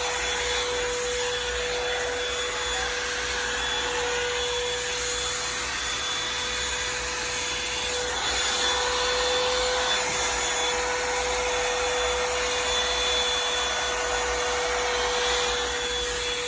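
Revlon One-Step hair dryer and volumizer hot air brush running steadily, its motor and fan blowing air with a constant whine.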